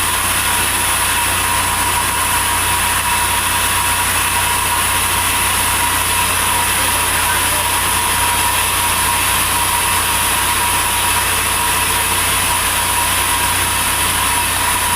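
Sawmill machinery running steadily with an engine-like hum and a continuous noise, unchanging throughout.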